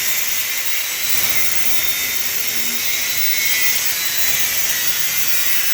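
Angle grinder running at full speed with a steady high whine, cutting through heavy cast brass.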